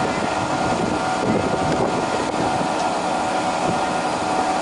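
Steady machine drone with several held whining tones over a rumbling base.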